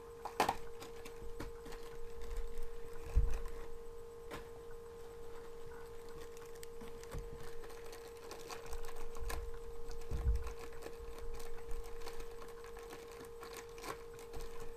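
Small cardboard blind box and plastic packet being handled and torn open: scattered crinkles and clicks, with two low thumps, about three seconds and ten seconds in, over a steady electrical hum.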